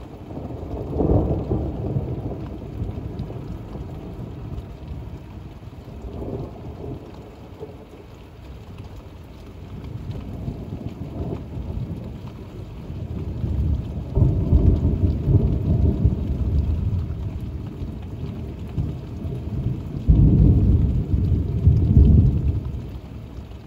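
Thunder rumbling again and again over steady rain: a rumble about a second in, a weaker one around six seconds, then a long rolling rumble from about halfway, and the loudest, starting abruptly, near the end.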